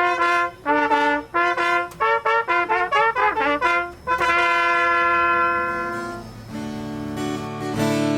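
Trumpet playing a melody: a run of short separate notes, then one long held note, after which softer sustained chords take over near the end.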